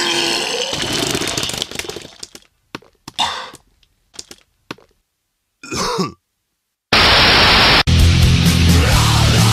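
Throaty vocal noises, a run of them at first and then short separate bursts with silences between. About seven seconds in comes a loud blast of noise lasting just under a second, then a loud, heavy, bass-laden rock-rap track kicks in.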